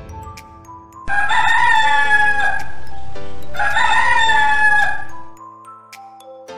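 Rooster crowing twice, each crow about a second and a half long and dropping in pitch at the end, over background music with steady held notes.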